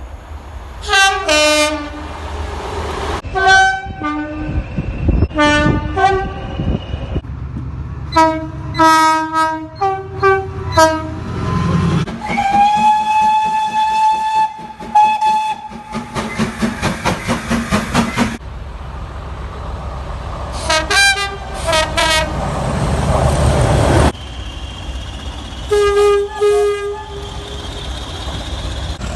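Train horns sounding again and again: short blasts, several in quick pairs and groups, and one long steady note near the middle. Between the blasts comes the rushing rumble of passing trains.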